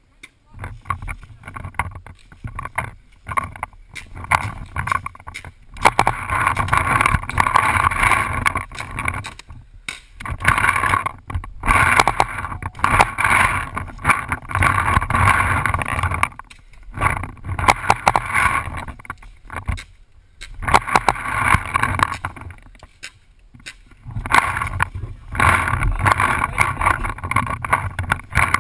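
Dye DM11 electropneumatic paintball marker firing in strings of rapid shots, several bursts of a few seconds each with short pauses between, the shots close to the hopper-mounted microphone.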